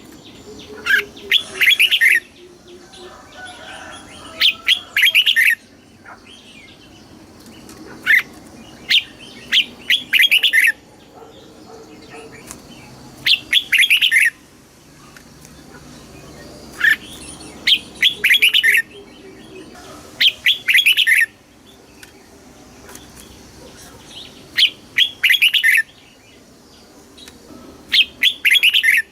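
Red-whiskered bulbul singing: short, bright, rapid whistled phrases, about one to two seconds each, repeated every three to four seconds.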